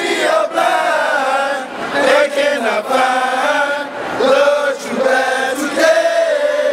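A group of men chanting in unison, a fraternity line's probate chant, in several drawn-out phrases with short breaks between them.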